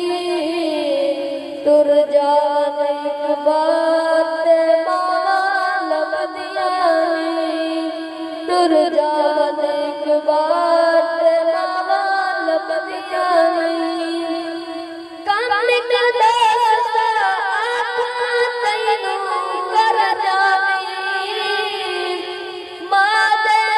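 A young male reciter singing verses unaccompanied in a slow, drawn-out style, with long held, wavering notes that step up and down in pitch and short breaks for breath.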